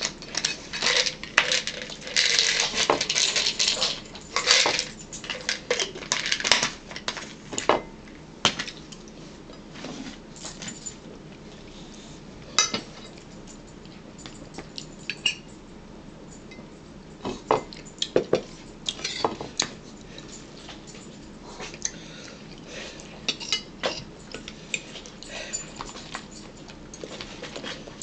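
Forks and cutlery clinking and scraping on plates and dishes at a meal. There is a busy run of clatter in about the first eight seconds, then scattered single clinks.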